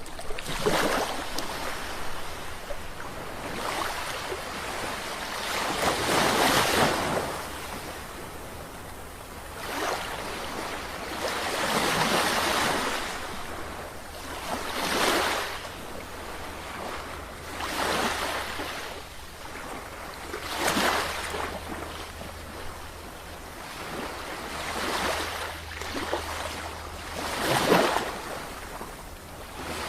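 Ocean waves breaking and washing on the shore, one after another, each surge of surf building and fading over a few seconds, with a brief sharper crash about two-thirds of the way through near the end.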